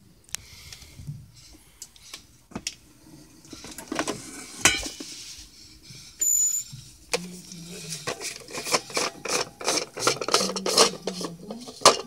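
Handling clatter of a thermal coffee carafe, plastic and stainless steel, as it is taken out of a KRUPS Aroma Control coffee maker: a few separate knocks and clicks. In the second half comes a quick run of plastic clicking and rubbing as the carafe's screw-on lid is worked loose.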